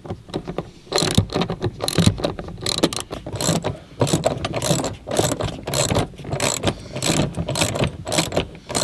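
Socket ratchet wrench clicking in quick runs of strokes, with short pauses between runs, as it tightens the bolts that hold a car's seatbelt bar.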